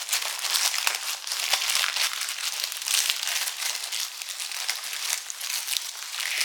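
A parcel's wrapping being torn open and crumpled by hand: continuous crinkling and rustling with many small crackles.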